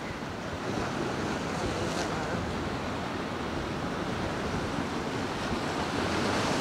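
Steady rush of wind and choppy sea washing against the pier, with wind buffeting the microphone.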